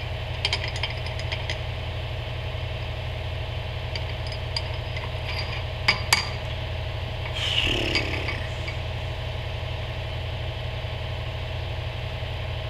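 Drill press motor running steadily with the bit spinning free, out of the cut. Over it come scattered light metallic clinks, two sharper clicks about halfway and a short scrape just after.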